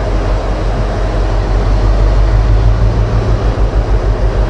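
Class 60 diesel locomotive 60028 approaching slowly at the head of a freight train, its eight-cylinder Mirrlees diesel engine giving a deep, steady drone. From about three seconds in, the sound takes on a regular pulsing beat, roughly five a second.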